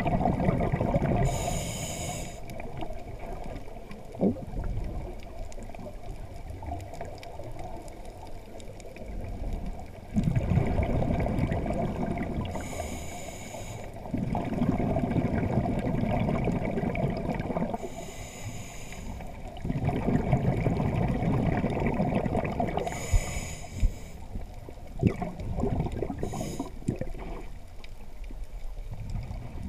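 Scuba diver breathing underwater through a regulator, heard from the diver's own camera. Each inhale is a short hiss and each exhale a longer rush of rumbling bubbles, about five breaths in all. A few sharp taps come near the end.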